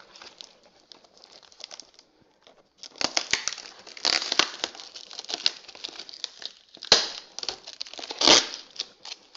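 Cardboard packaging being handled: faint crackles at first, then busy rustling and scraping of cardboard from about three seconds in, with two sharp knocks near the end.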